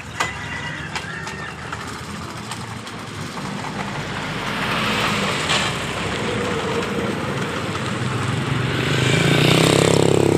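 A motor vehicle engine runs steadily, growing louder toward the end as if coming closer. A few light clicks are heard in the first couple of seconds.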